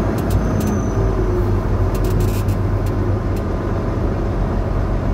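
Volvo VNL860 semi truck's diesel engine running steadily at low speed, a low drone heard from inside the cab, with a few light clicks and rattles.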